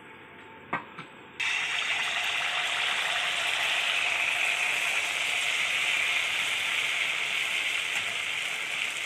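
Rice-flour and coconut pitha batter sizzling steadily in hot oil in a wok, starting suddenly as the batter is ladled in, after two light clicks.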